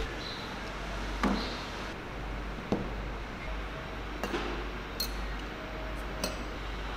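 About five sharp clinks and knocks of hard objects being handled or set down, spread a second or so apart, over a low steady hum.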